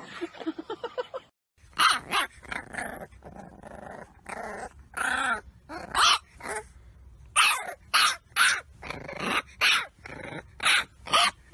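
English bulldog puppy barking and growling in a long string of short, uneven barks, starting about a second and a half in.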